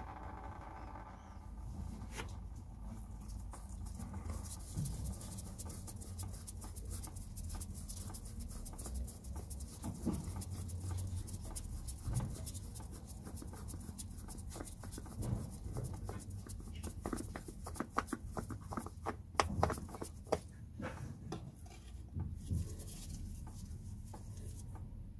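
Used oil filter on a Nissan Micra K12 petrol engine being turned off its thread by a nitrile-gloved hand: irregular rubbing, scratching and small clicks of glove and canister. The clicks come thickest in the last few seconds as the filter comes free, over a steady low rumble.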